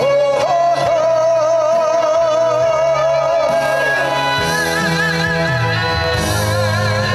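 A song played loud over a backing track with bass and guitar, with a long held note that wavers with vibrato for about three seconds, then a higher wavering melody line over shifting bass notes.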